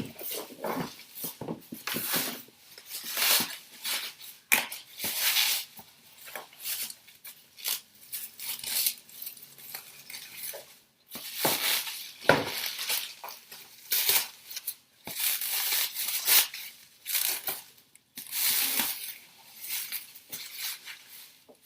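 Plastic packaging rustling and crinkling in irregular bursts as it is handled and pulled open, with a few light knocks of hard plastic.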